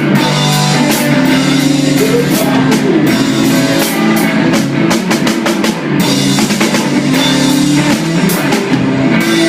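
Rock band playing: drum kit, guitar and bass, no singing.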